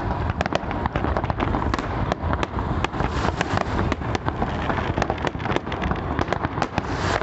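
Fireworks going off: a dense, irregular run of sharp pops and cracks, several a second, over a continuous rumble and hiss.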